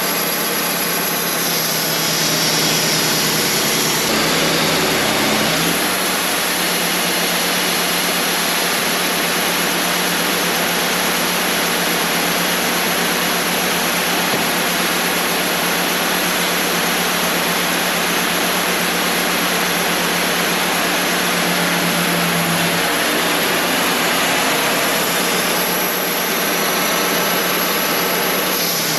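Wood-Mizer LT35 portable band sawmill running steadily: a constant engine hum under a broad hiss, shifting slightly a few seconds in.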